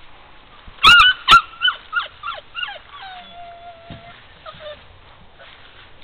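A puppy yelping: a quick run of about seven high yips starting about a second in, the first ones loudest and with sharp clicks, fading over two seconds, then a drawn-out steady whimper about a second long and a shorter one after it.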